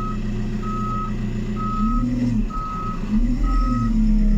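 Reversing alarm on a JCB 540-170 telehandler beeping steadily, about once a second, after reverse is selected. Under it the machine's diesel engine runs, its note rising and falling twice.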